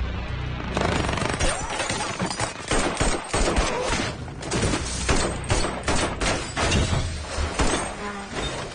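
A shootout: sustained rapid gunfire, many shots in close succession, starting suddenly and keeping on almost without a break.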